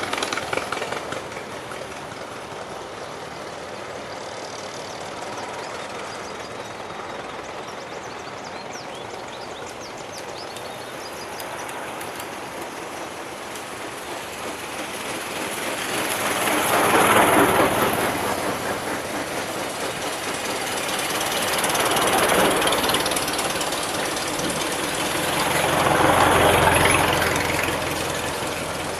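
Vintage cars driving past one after another: three pass-bys swell up and fade, the loudest about two-thirds of the way in, over a steady background of engine noise.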